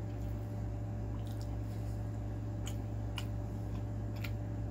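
Quiet close-miked eating: a few faint wet clicks and squishes of chewing seafood boil, over a steady low electrical hum.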